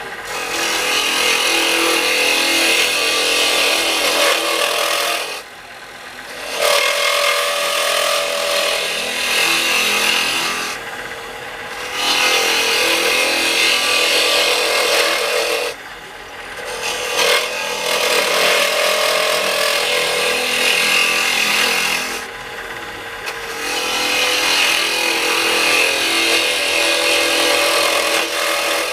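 A turning tool scraping against a wooden burl spinning on a wood lathe, in passes of several seconds each. Four short breaks between passes leave the quieter sound of the running lathe.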